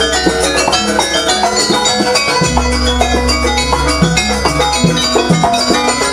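Javanese gamelan music for a jaranan horse dance: a quick, even beat of drums with bright, ringing metal-percussion notes over a deep low tone.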